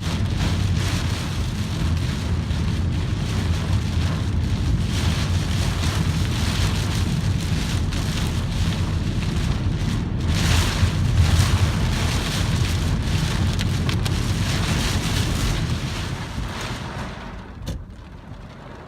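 Strong typhoon wind gusting with rain, buffeting the microphone with a deep rumble. The gusts swell to their loudest about halfway through, then ease off near the end with a brief click.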